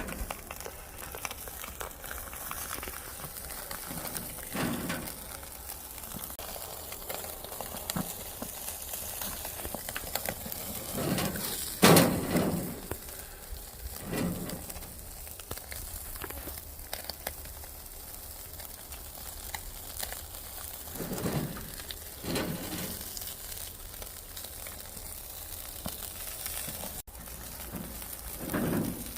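Fish sizzling as it grills over a wood fire, with the burning wood crackling. A few brief louder knocks and clatters break in, the loudest about twelve seconds in.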